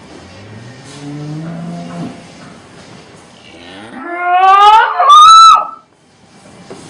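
A cow mooing twice: first a low, rising moo, then a loud moo that climbs steeply in pitch into a high squeal near the end and cuts off suddenly.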